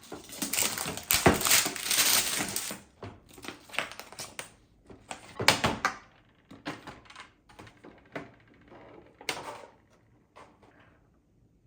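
Rustling and clicking of small items being handled: spools of thread picked through on a store rack. A dense rustle runs through the first few seconds, then separate clicks and knocks.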